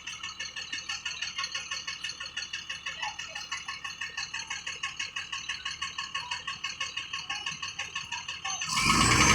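A fast, even, high-pitched pulsing, about seven pulses a second. Near the end a heavy machine's engine comes in loudly.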